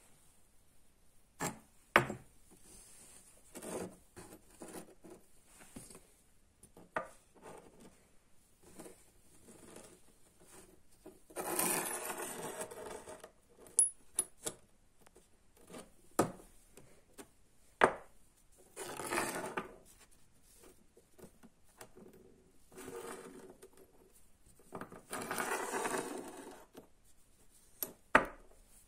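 Steel bars cut from a mosaic damascus billet being handled on a hard work surface: sharp metal clinks as they are set down or knocked together, and three longer scraping passes as a bar is slid and rubbed by hand.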